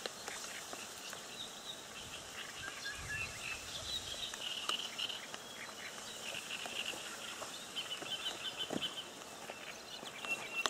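Small birds chattering and chirping, with a few light knocks and rustles as a crucian carp is lifted out and unhooked, and a brief low rumble about three seconds in.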